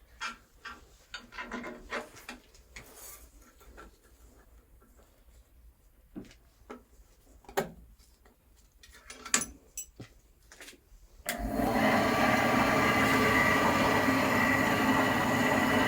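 Scattered clicks and knocks of handling, then about eleven seconds in the Axminster Craft AC1950B bandsaw is switched on and runs steadily with a motor hum and whir, not cutting: a test run of a newly fitted blade.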